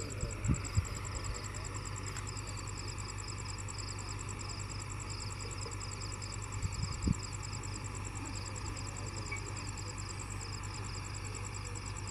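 Heavy machinery engine running steadily with a low hum, with night insects trilling continuously in rapid pulses. A few short knocks come about half a second in and again about seven seconds in.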